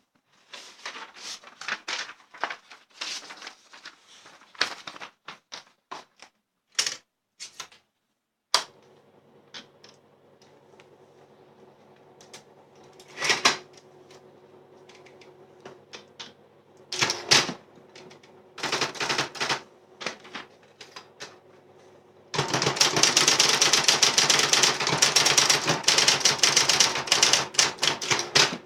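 Adler electric 131F typewriter: scattered mechanical clicks, then its electric motor starts a steady hum about a third of the way in. Over the hum come single loud key strikes and short bursts of typing, then a long run of rapid, continuous strikes over the last six seconds.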